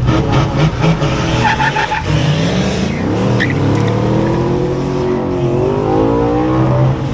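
Street car at a drag strip running hard under full throttle, its engine pitch climbing, falling back and climbing again as it accelerates.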